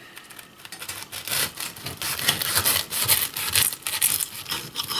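A knife sawing back and forth through a crisp, pan-fried pork quesadilla to cut it in half, a run of rasping, crunchy strokes starting about a second in.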